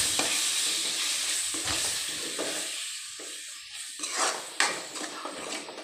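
Hot masala and soybean chunks sizzling in a metal pan as water is added, the sizzle fading away, while a spoon stirs and clicks against the pan a few times.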